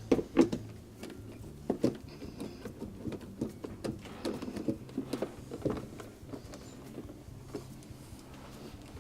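Irregular clicks and knocks of tools and parts being handled during dishwasher reassembly, the loudest near the start, over a faint steady low hum.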